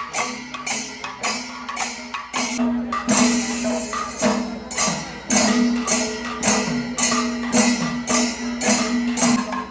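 Kerala temple percussion music: metallic cymbal clashes and drum strokes in a steady rhythm, about three a second, over a held low wind-instrument tone that grows louder about two and a half seconds in.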